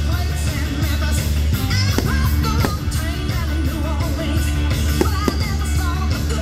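Rock song with a singing voice, and the sharp bangs of aerial firework shells bursting at irregular moments over it.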